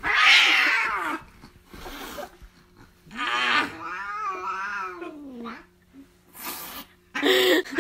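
Domestic cat yowling while held and squirming: a harsh yowl in the first second, then a long, wavering yowl that rises and falls before dropping away, then a short noisy burst.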